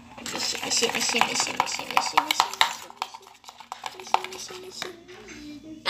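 Metal spoon stirring and scraping sticky slime glue in a plastic bowl: a quick run of clicks and scrapes for about three seconds, then quieter.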